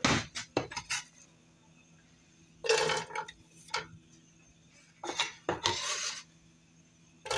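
Chopped onion being tipped and scraped into a stainless steel skillet of olive oil, in a few short clattery bursts with light taps against the pan. The oil is not yet hot enough to sizzle.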